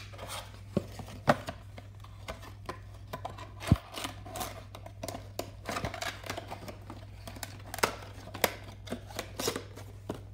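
Clear plastic blister insert and cardboard box of a model airliner being handled and closed: an irregular string of crinkles, clicks and taps, with one louder knock a little before halfway.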